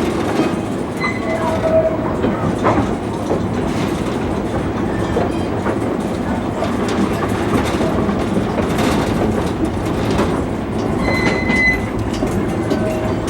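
A small ride train rolling along the track, its wheels rumbling steadily with a clickety-clack over the rail joints. There are short high wheel squeals about a second and a half in and again near the end.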